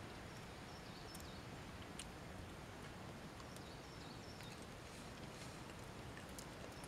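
Quiet outdoor woodland ambience: a faint steady hiss with a few faint sharp clicks and brief high chirps.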